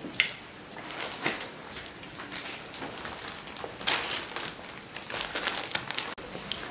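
Clear plastic bag of soil crinkling and rustling as it is handled, in scattered crackles that thicken into a dense run about five seconds in. There is a sharp click just after the start.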